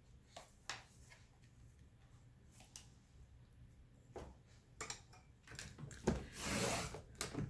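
Creative Memories paper trimmer cutting a sheet of paper: a few faint clicks and taps as the paper is lined up, then about six seconds in the cutter slides down the track with a rasping swish lasting just under a second.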